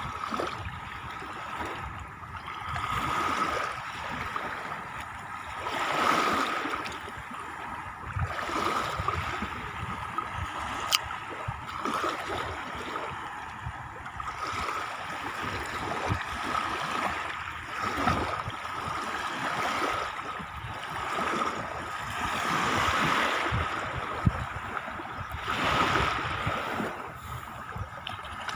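Small sea waves washing onto a shallow sandy shore, the rush of water swelling and fading every few seconds.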